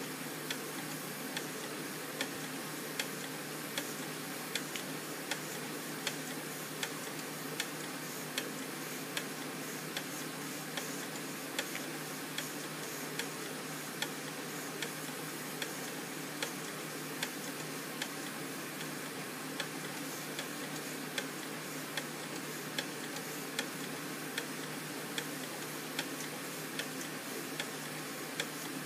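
Weeden #34 toy steam engine running slowly: a light, even tick a little more than once a second, over a steady hiss.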